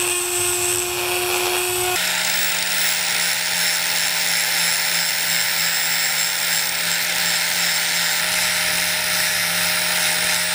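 Electric die grinder running steadily with one even whine, cleaning the inside of a steel olet. About two seconds in it gives way to an angle grinder running steadily at a higher pitch with a low hum under it, its disc grinding the olet's face.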